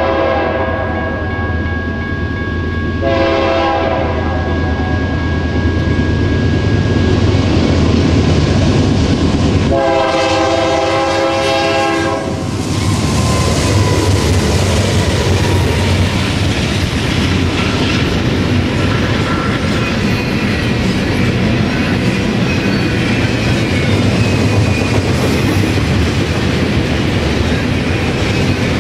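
A diesel freight locomotive in Canadian National paint sounds its horn for a grade crossing. One blast ends about a second in, a short one comes about three seconds in, and a longer one about ten seconds in. The locomotive then passes close by, and double-stack intermodal container cars roll past with a steady rumble and wheel clatter over the rail joints.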